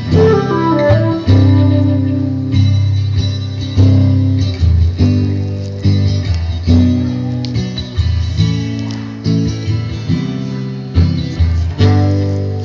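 Acoustic guitar strummed and picked in a slow instrumental passage, chords changing about every second or two over a steady bass line. A flute line rises and fades in the first second.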